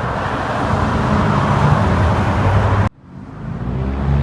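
Highway traffic: a semi-truck's diesel engine drone over steady tyre and wind rush. The sound cuts out abruptly about three seconds in and swells back within a second.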